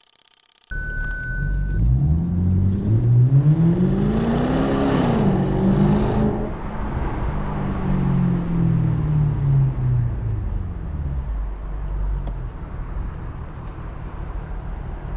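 BMW 650i's 4.8-litre naturally aspirated V8 accelerating hard, revs climbing to an upshift about five seconds in, then pulling on in the next gear before easing off near the end.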